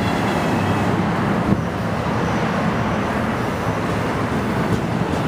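Steady low rumble and hiss of a train running at the platform, with wind buffeting the microphone.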